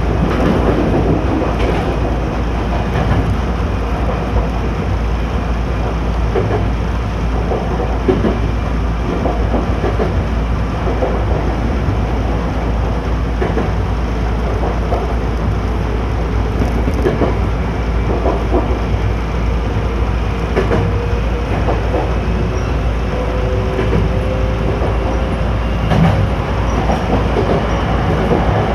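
Chichibu Railway electric train running on the rails: a steady rumble with irregular clicks of the wheels over rail joints. A faint steady tone comes in about two-thirds of the way through.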